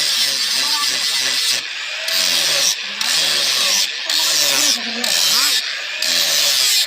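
A hand tool rasping back and forth across the steel of a katari blade, in steady strokes of about one a second, each just under a second long with a short break between.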